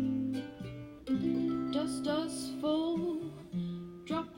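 Background music: acoustic guitar playing chords between the sung lines of a song.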